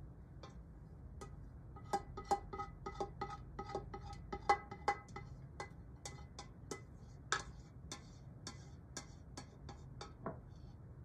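A metal spoon clinking and scraping inside the Instant Pot's stainless steel inner pot as thick cheese sauce is scooped out. It comes as an irregular run of sharp taps, two or three a second, many ringing briefly with a metallic tone.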